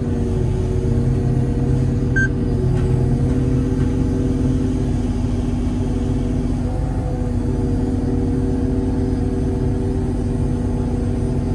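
A 25-ton mobile crane's engine and hydraulics run steadily under load as the crane lifts and swings a bundle of rebar, a continuous drone that shifts slightly in pitch partway through.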